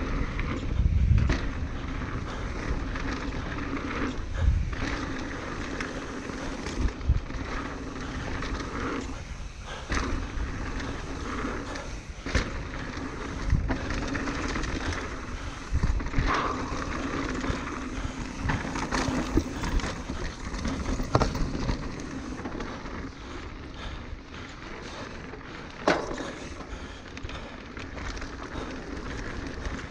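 Norco Range enduro mountain bike descending a dirt trail: a steady rolling rush of tyres and rushing air, broken every few seconds by sharp knocks and clatter from the bike.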